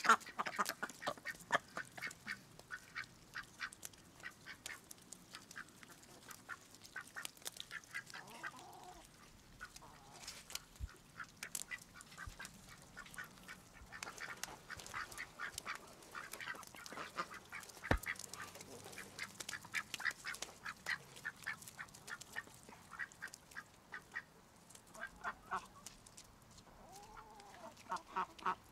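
White domestic ducks calling softly in short, rapid quacks while feeding, along with the clicks of their bills pecking food off the ground.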